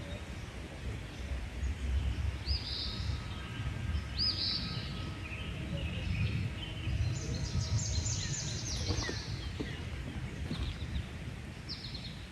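Birds chirping in short, arching high calls, in several bursts, over a steady low rumble of outdoor noise. A faint steady tone runs underneath for a few seconds in the middle.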